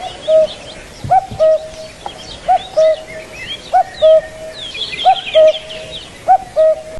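A bird repeats a low two-note call about five times, roughly once every second and a half: a short upturned note followed by a flat, longer one. Higher, quicker chirps of other birds run underneath.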